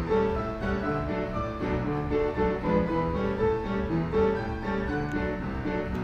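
Popper "Happy Jazz Band" orchestrion, a paper-roll-driven automatic piano with built-in instruments, playing a tune: piano bass notes and chords in a steady rhythm.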